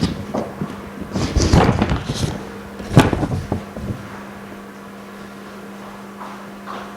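Clatter and knocks of small objects being handled and set down, with one sharp click about three seconds in, over a steady low electrical hum.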